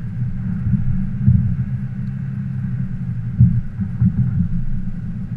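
Steady low rumbling drone heard inside the cabin of a moving 2018 Lexus LS500, with a few heavier thumps just over a second in and again around three and a half to four seconds in. This may be the noise that the owner's title calls a bad sound.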